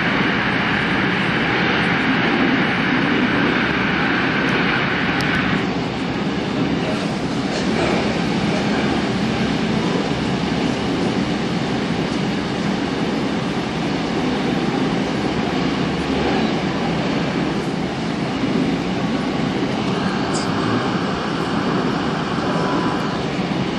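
Busan Metro Line 3 train running through a tunnel: a steady rumble of wheels and running gear. A higher hiss drops away about six seconds in and returns briefly near the end.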